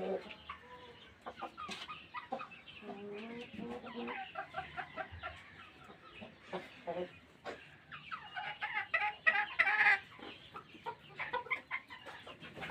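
Several chickens clucking in a run of short calls, with a louder, busier stretch about two-thirds of the way through.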